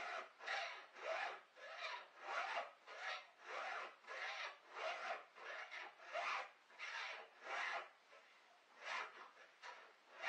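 A chainsaw's old saw chain being sharpened with a hand file: steady rasping file strokes, about two a second, with a brief pause about eight seconds in.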